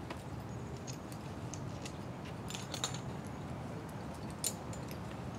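A climber moving through the tree canopy: scattered light clicks and clinks, a cluster a little past halfway and one sharper click near the end, over a steady low background hum.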